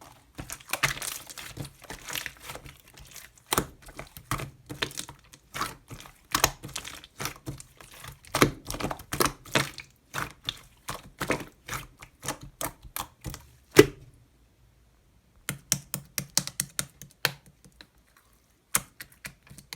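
Slime being squeezed and folded by hand, giving off rapid, irregular small clicks and pops. A sharper crack comes about two-thirds of the way through, followed by a pause of about a second and a half before the clicking resumes.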